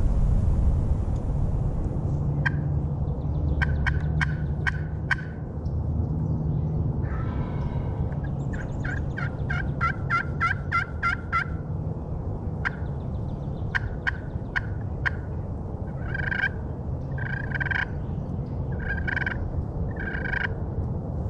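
Wild turkey sounds: a tom gobbles once about seven seconds in, amid runs of short turkey yelps and clucks from a hunter's friction call, including a quick even string of notes and, near the end, a few longer yelps.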